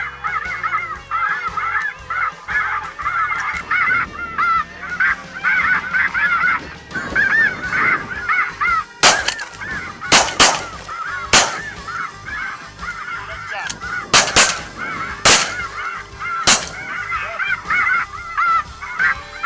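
A large flock of light geese calling steadily overhead, many overlapping honks. About nine seconds in, a volley of about eight shotgun shots breaks out over the calling, in quick pairs and singles over the next eight seconds.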